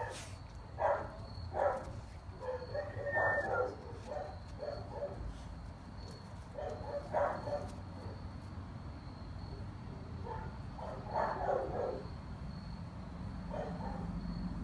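A dog barking off and on: short barks in scattered clusters, a few at a time, over a low steady background rumble.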